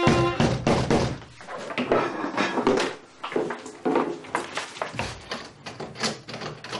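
A violin note cut off at the start, then a fast, irregular run of knocks and thuds as a crowd raps on a shop's glass door and the door is pulled open, with muffled voices behind it.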